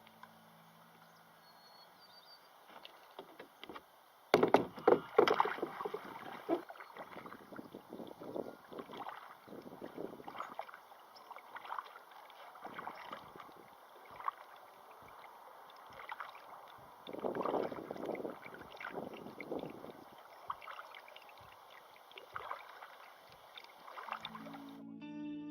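Kayak paddle strokes splashing and sloshing water in irregular bursts, with louder splashes about four seconds in and again past the middle.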